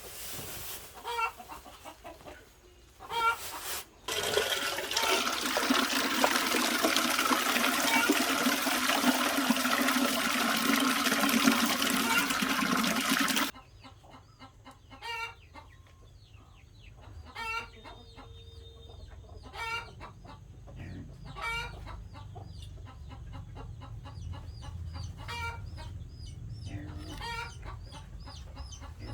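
Chickens clucking with short, repeated calls. For about ten seconds in the first half, a loud steady rushing noise covers them, then cuts off suddenly.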